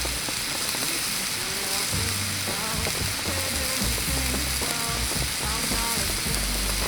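Steak sizzling as it grills over a campfire, a steady hiss, under soft background music.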